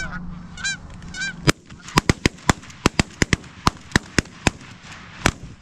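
Three goose honks in the first second and a half, then a rapid volley of about fourteen shotgun shots from several hunters firing at geese coming in over decoys, the last shot coming near the end.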